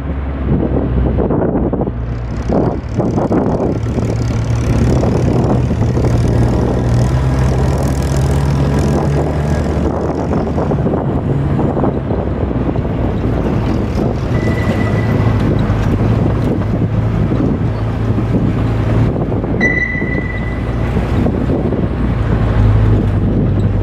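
Steady low rumble with wind buffeting the microphone; a faint high tone sounds briefly twice after the middle.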